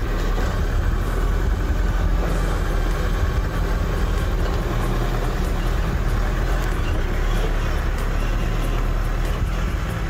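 Motor vehicle driving: a steady low engine and road rumble.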